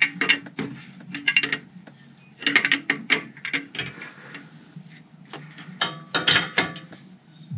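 Sharp metal clicks and clinks of a 22 mm box wrench working a downstream oxygen sensor loose on an exhaust downpipe, coming in several short clusters.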